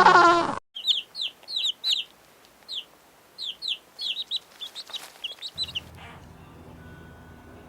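Poultry chicks peeping: a rapid, irregular series of short, high peeps, a dozen or more over about five seconds, then they stop. It opens with the end of a deeper animal call that cuts off abruptly, and a faint low hum comes in near the end.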